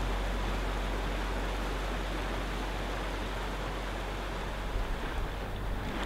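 Steady rushing water, an even hiss with a low rumble under it. Near the end the low rumble starts to flutter.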